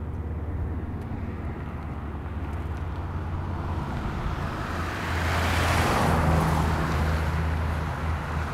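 Street traffic: a car passes by, its tyre and engine noise swelling and fading about five to seven seconds in, over a steady low rumble.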